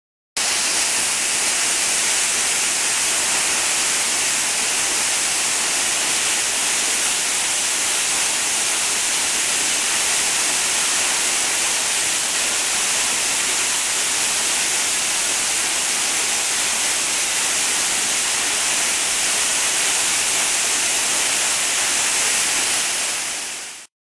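Waterfall pouring down a rock face: a steady, loud rush of falling water, heaviest in the hiss. It cuts in abruptly at the start and fades out quickly near the end.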